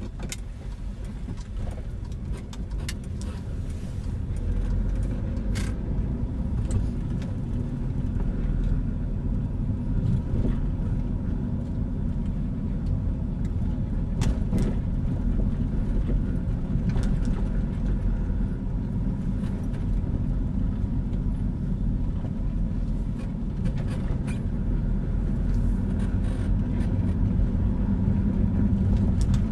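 A car being driven, heard from inside the cabin: a steady low rumble of engine and road noise that grows a little louder after a few seconds, with occasional faint clicks.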